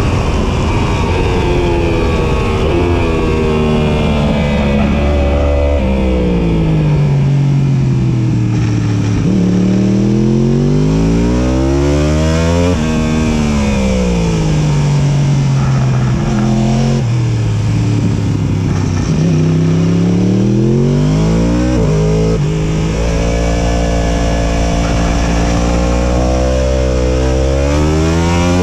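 2018 Yamaha YZF-R1's crossplane inline-four engine heard on board at racing speed, revving up and down over and over. The pitch climbs under hard acceleration, drops sharply at each upshift, and slides down in long sweeps as the bike slows for corners.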